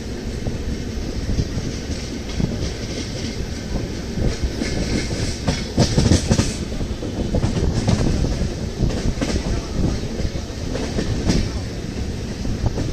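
Passenger train wheels clicking and rattling over rail joints and points, heard from an open coach doorway as the train picks up speed after departure.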